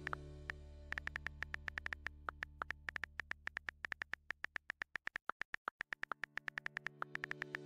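Rapid computer keyboard key clicks, several a second and unevenly spaced, as code is typed. Under them a soft sustained synthesizer pad plays, fades out a little after the middle and comes back near the end.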